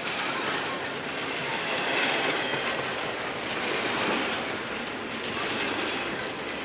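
Empty freight cars rolling past on the rails: a steady rumble and clatter of steel wheels that swells and eases a little as the cars go by.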